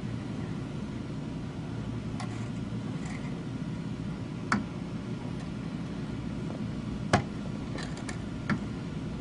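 Small tools clicking and tapping against a printed circuit board during desoldering: a few sharp, separate clicks, the loudest three about halfway, near seven seconds and near the end, over a steady low hum.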